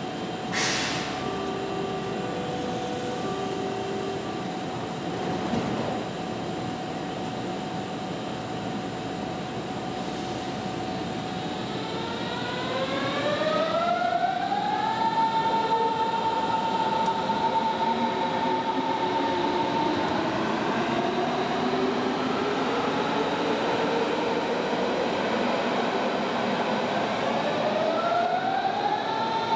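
Berlin S-Bahn electric trains' traction motors whining up in pitch as trains accelerate away from the platform. One whine climbs and levels off about halfway through, and a second starts later and rises until near the end.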